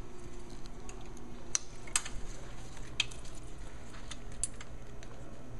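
Metal dog-leash style snap hooks on luggage straps clicking and clinking as they are handled and clipped on, with a handful of sharper clicks among lighter ticks.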